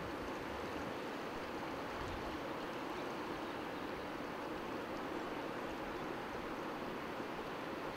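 Steady, even rushing of a river in flood.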